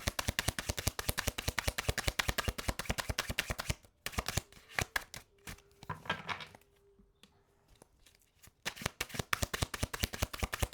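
Tarot cards being shuffled by hand: a fast flurry of card clicks that slows and quietens about four seconds in, then picks up again for the last two seconds.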